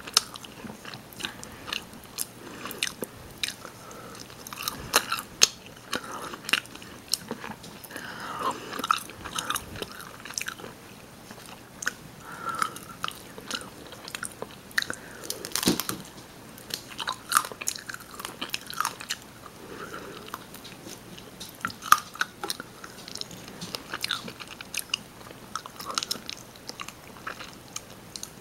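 Close-miked chewing and biting of rotisserie chicken: irregular wet mouth clicks and smacks throughout, the sharpest a little past halfway.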